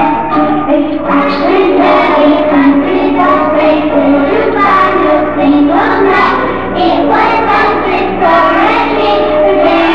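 Young children singing a song together, with a steady low hum underneath.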